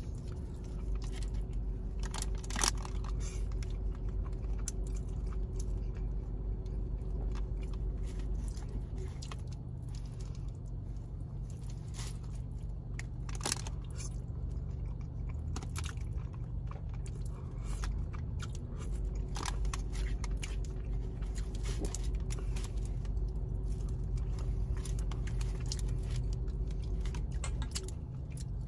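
Close-up sounds of spaghetti being eaten: chewing, with a plastic fork clicking and scraping against a paper food box a few times. A steady low hum runs underneath.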